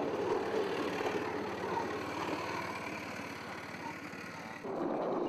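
Motorized bamboo train (norry) running along the rails: a steady, noisy engine-and-rattle as the slatted platform rides the track. The sound changes abruptly a little before the end.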